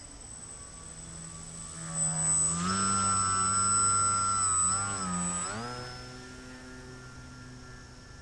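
Small electric RC plane's brushless motor (SunnySky 2204 1800kv) and propeller whining. It swells about two seconds in and stays loud for about three seconds with small wavers in pitch as the throttle is worked, then shifts pitch and fades.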